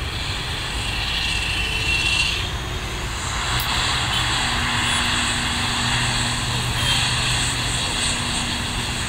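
IndiGo ATR 72-600 turboprop's engines and propellers running as the airliner moves along the runway. It is a steady drone with a hiss, and a low, even hum sets in about four seconds in.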